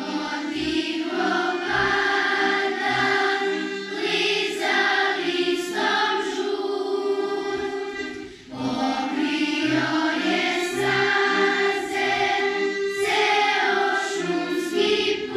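A children's choir singing a song together, accompanied by a piano accordion playing held chords and pulsing bass notes. There is a short break between phrases about eight seconds in.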